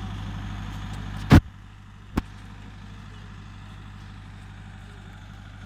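Miniature park train's engine running with a steady low hum. Two sharp knocks, a loud one about a second and a half in and a smaller one just after two seconds; after the first, the hum is a little quieter.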